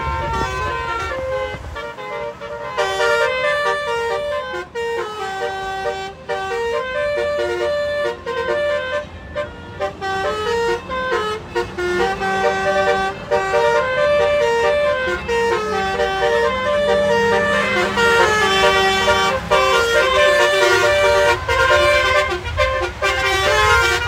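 Multi-tone telolet (basuri) car horn playing a rhythmic melody of short notes stepping up and down in pitch, with the low rumble of cars on the road underneath. The horn grows louder in the second half.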